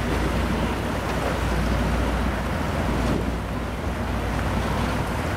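Offshore racing powerboat running at speed across open water, a steady low engine sound mixed with wind buffeting the microphone.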